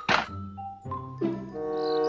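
Background music of a few held, organ-like notes that change pitch every half second or so, with a brief sharp knock right at the start.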